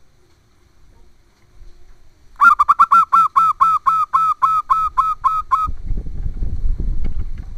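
Zebra dove (perkutut) calling: a run of about a dozen short, evenly spaced notes, about four a second, starting a couple of seconds in and lasting about three seconds, followed by a low rumble.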